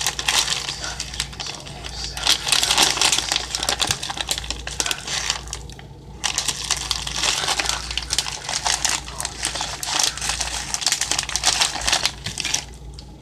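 Plastic packaging crinkling as it is handled, in two long stretches with a short break about six seconds in.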